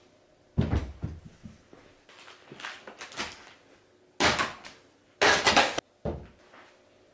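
Camping cookware and gear being put down and tossed onto a cushioned sofa one piece at a time: a series of separate knocks and soft thumps, with a louder noise about half a second long a little after halfway.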